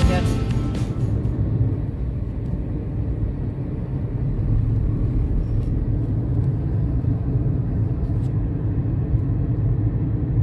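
Steady low road and engine rumble of a moving car heard from inside the cabin, with music fading out in the first second.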